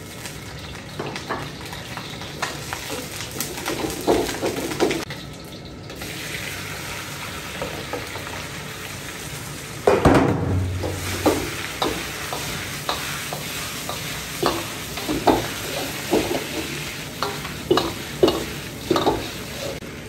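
Fish sizzling in lard in a wok while a spatula stirs it, knocking and scraping against the pan. The sizzle gets suddenly louder about halfway through.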